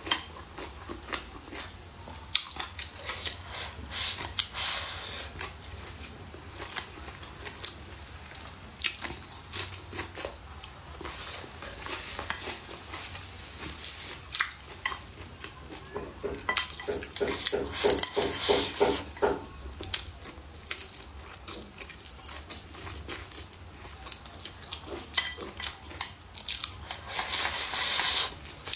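Wooden chopsticks tapping, clicking and scraping against a ceramic plate as rice and food are picked up and shovelled toward the mouth, with denser scraping bursts a few times, the longest near the end.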